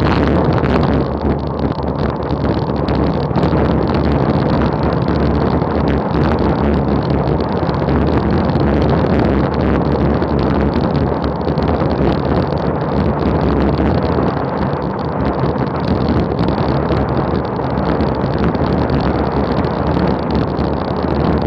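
Steady, loud wind rush buffeting a bike-mounted action camera's microphone during a fast road descent at nearly 40 mph, with a low rumble from tyres on the road beneath it.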